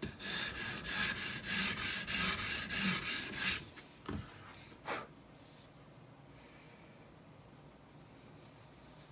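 Sharpening stone on an Edge Pro guided sharpener stroked quickly back and forth along a knife edge, a rapid run of short scrapes that stops about three and a half seconds in, followed by two single strokes. These are test strokes over a marker-coated edge to check where the stone is hitting after raising the angle.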